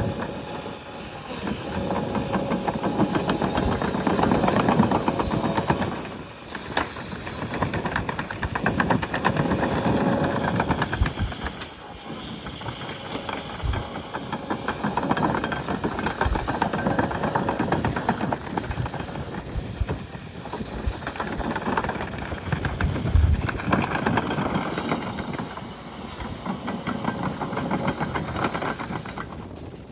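Can-Am side-by-side's engine running on the move, its note rising and easing off in waves every few seconds as the throttle changes.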